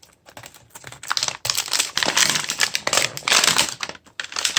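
Toy-capsule packaging crinkling and tearing as it is pulled open by hand after its zipper pull jammed, a dense run of crackles and clicks that builds about a second and a half in.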